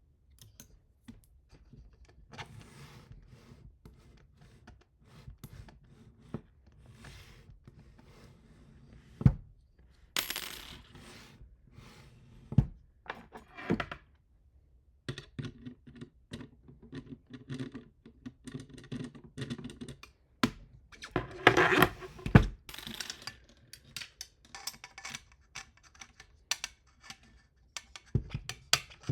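Hands-on assembly of 3D printer frame parts: irregular clicks, knocks and clinks of small metal hardware such as screws and nuts. There is a sharp knock about nine seconds in, and a louder burst of clatter a little past twenty seconds.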